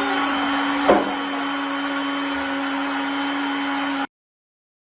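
Electric blender running steadily with a constant motor hum, with a short knock about a second in; the sound cuts off suddenly about four seconds in.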